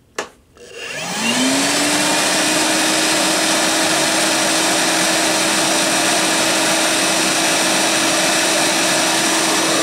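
Milwaukee M12 Fuel 0960-20 cordless wet/dry vacuum on its low-power setting. A click, then the motor spins up with a rising whine over about a second, then runs steadily with a loud rush of air.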